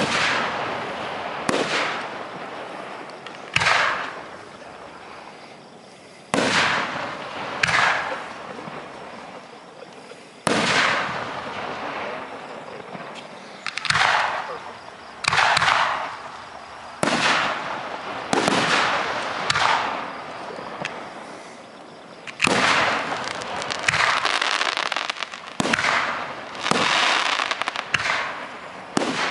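Aerial fireworks shells bursting close overhead, one after another, some fifteen bangs every one to three seconds. Each bang is loud and sudden and dies away over a second or two.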